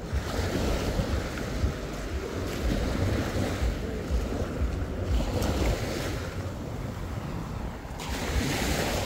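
Small waves washing up the sand at the water's edge, the hiss swelling about every two to three seconds, with wind rumbling on the microphone.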